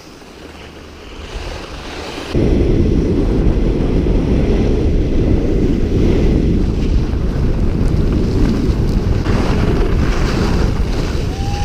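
Wind buffeting an action camera's microphone while skiing fast downhill, a steady low rushing noise that suddenly gets much louder a couple of seconds in as speed picks up.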